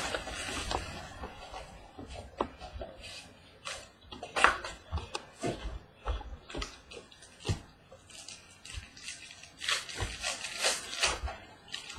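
A sports-card box and its cards being handled and opened: irregular rustling, scraping and light taps of cardboard and packaging. The loudest rustle comes about four and a half seconds in, with a busier stretch about ten seconds in.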